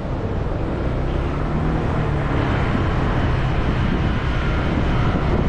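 Motorcycle running on the move, a loud, steady low rumble with rushing noise over it.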